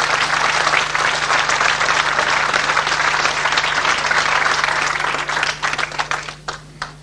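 Audience applauding, thinning out near the end into a few last scattered claps.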